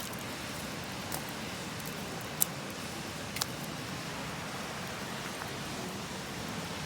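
Wood campfire crackling, with a few sharp pops, the loudest about two and a half seconds in, over the steady rush of a nearby river.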